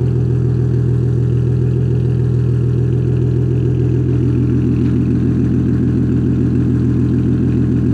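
Car engine running steadily, a loud, even low drone that does not change in pitch or level.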